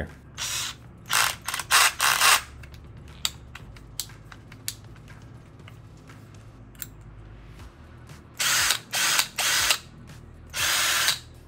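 Half-inch keyless metal chuck of a RIDA 20V cordless drill being twisted by hand and ratcheting in short bursts: four quick turns in the first couple of seconds and four more near the end as a bit holder and driver bit are clamped in. Light clicks of bits being handled come in between.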